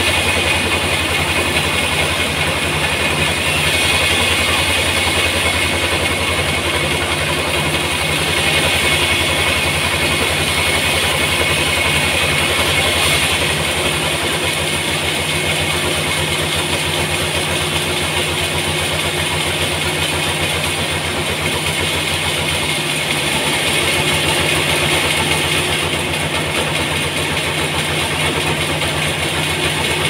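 Large sawmill band saw running and cutting lengthwise through a big trembesi (rain tree) log: a steady machine hum under a constant hiss of the blade in the wood. The low hum eases slightly about halfway through.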